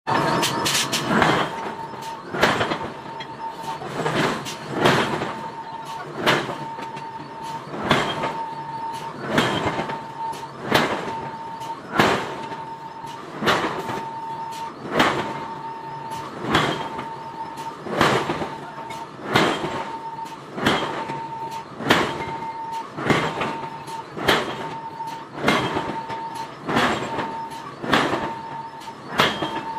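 Large air hammer forging a red-hot iron bar: heavy, evenly paced blows, about one every second and a quarter, with lighter knocks between them. A steady high hum runs behind the blows.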